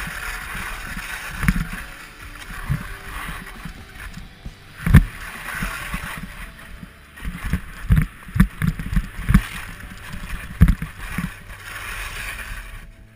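Skis hissing and scraping over snow in swelling swishes as the skier turns. Sharp thumps and knocks come through it, the loudest about five seconds in and a quick run of them a few seconds later.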